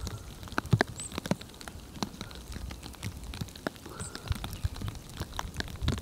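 Irregular light ticks and taps, with a few brief high-pitched chirps from small birds about a second in and again near four seconds.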